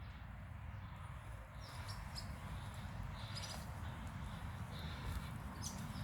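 Swift parrots giving short, high-pitched chirping calls, scattered a few at a time, over a steady low rumble.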